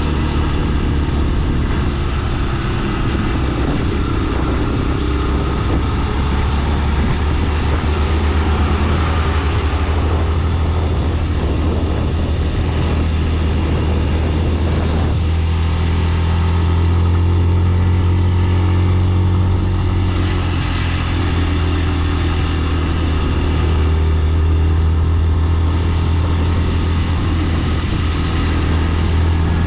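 Motor vehicle driving along a highway: a steady, loud engine and road drone with a constant low hum.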